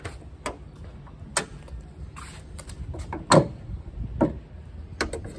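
Car bonnet being opened by hand and propped: several sharp clicks and metal knocks from the latch and the bonnet support rod, the loudest about three seconds in.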